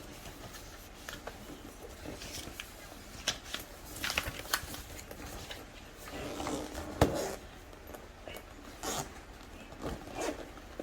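Packaging and parts of a drone kit being handled during unboxing: scattered rustling and light clicks, with one sharp click or knock about seven seconds in.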